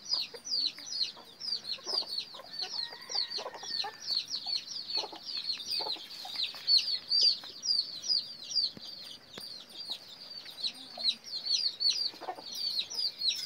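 Continuous high-pitched peeping, about four short descending peeps a second, with scattered soft knocks and rustles.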